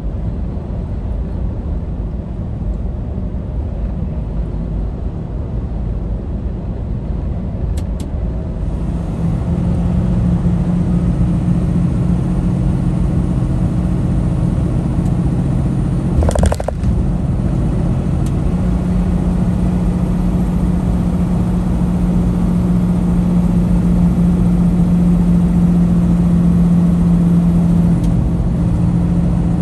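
Inside a semi-truck's cab at highway speed: a steady low engine drone over road rumble, the engine hum growing stronger and steadier about nine seconds in. There is one brief sharp noise a little past halfway.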